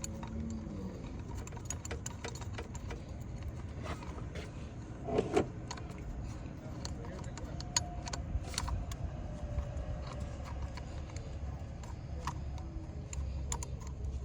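Irregular small metallic clinks and taps of hand tools on engine parts while an EGR valve is bolted in, with a louder clatter about five seconds in, over a steady low rumble.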